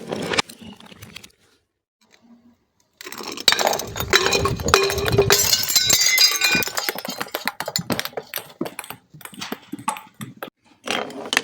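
Glass being crushed and broken, a dense crunching and crackling with shards clinking and ringing. It starts about three seconds in after a short pause, then thins to scattered clicks of settling pieces.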